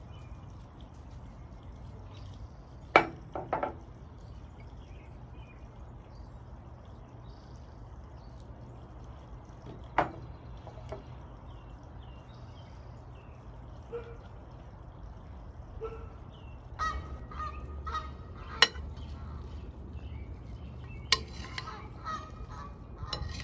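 Fowl calling on and off, with a few sharp clicks or knocks, the loudest about 3, 10 and 18 seconds in, over a steady low hum.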